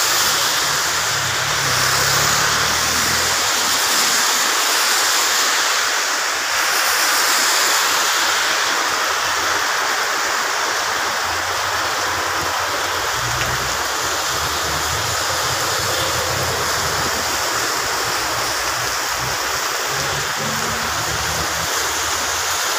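Heavy rain falling steadily on a wet road, a continuous hiss. A car's tyres swish through the standing water at the start, and a low rumble of vehicles comes and goes later.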